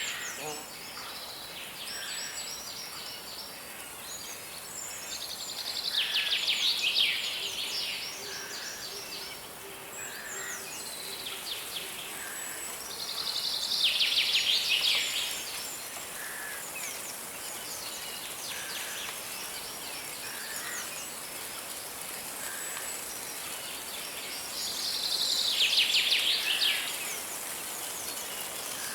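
Songbirds singing over a steady rushing hiss of a river: three loud bouts of rapid, trilling notes about two seconds each, with fainter short chirps between them.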